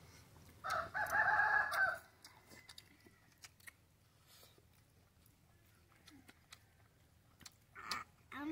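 A rooster crowing once, a single crow of a bit over a second starting just under a second in.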